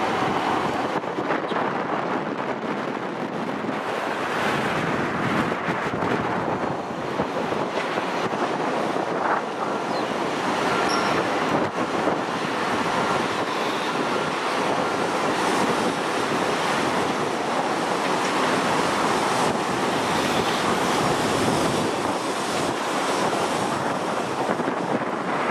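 Heavy wind buffeting the microphone, mixed with the steady roar of a Virgin Atlantic Boeing 787's jet engines at takeoff power as the airliner rolls and climbs out, the noise swelling a little midway.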